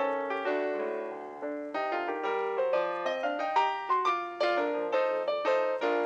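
Background piano music: a flowing melody of single struck notes, each fading away, played at an even pace.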